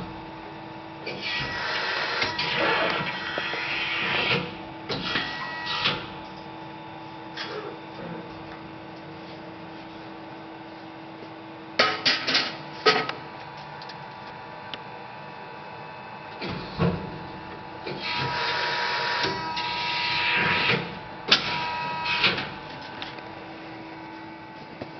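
LVD PPS 100-ton CNC press brake running: a steady machine hum throughout, with two bending strokes, each a few seconds of hissing and whining from the ram's drive. Sharp metallic knocks come as the sheet metal is handled, the loudest about 12 and 21 seconds in.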